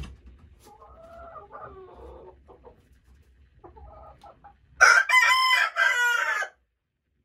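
Icelandic chickens clucking softly, then an Icelandic rooster crows loudly once, a crow lasting about a second and a half near the end.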